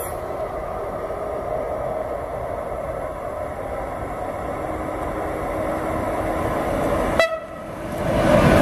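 Electric locomotive hauling a container freight train approaches and passes: a steady rumble of wheels on rail that slowly grows, then swells sharply near the end as the locomotive goes by. A short horn note sounds about seven seconds in.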